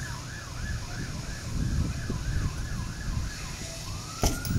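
Emergency vehicle siren on a fast yelp, the pitch sweeping up and down two or three times a second, then changing to a slower rising tone near the end. A sharp knock comes just before the end.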